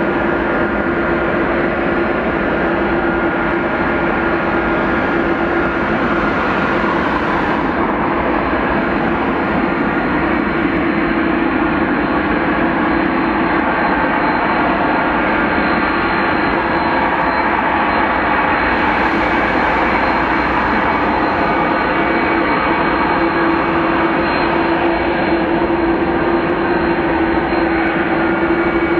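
Boeing 787-9 jet engines at takeoff thrust on the departure roll: a loud, steady rumble with a held hum running through it.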